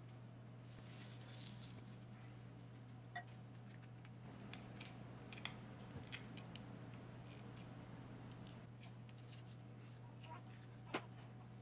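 Faint, scattered clicks and light taps of salt and pepper shakers being handled while seasoning raw chicken pieces, the sharpest click near the end, over a low steady hum.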